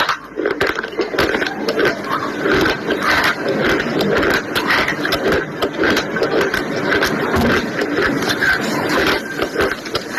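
A person chewing something hard and crunchy close to the microphone: dense, irregular crunching and crackling, with a short lull just after the start.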